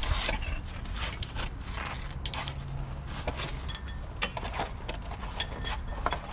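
Ratchet wrench on a 19 mm socket clicking in short, irregular runs as it tightens the pressure bolt of a forged ball joint separator, loading the lower ball joint stud before it pops free.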